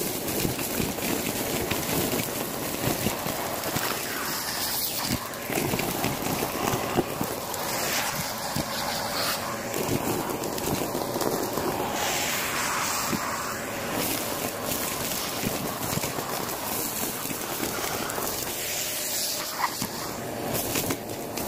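Vacuum cleaner running steadily while its hose nozzle sucks up a heap of small debris (paper and card scraps, plastic bits, can pull-tabs), which crackle and rattle as they are pulled up the hose.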